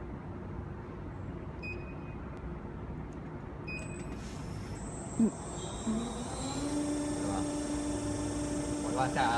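Faint clicks from the control panel, then a sharp click about five seconds in. A motor then winds up and settles into a steady hum: the 3-ton hydraulic press's pump starting and running.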